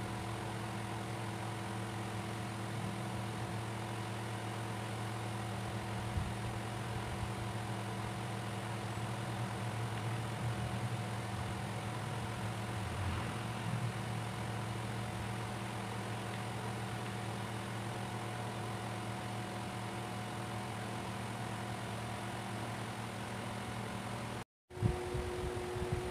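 Steady mechanical hum of a running motor, holding several even tones, with a few light knocks. Near the end it cuts out for a moment and comes back at a different pitch.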